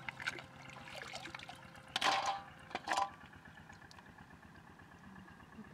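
Shallow water splashing and dripping as gloved hands scoop snails and mud up from the bottom. Two louder splashes come about two and three seconds in.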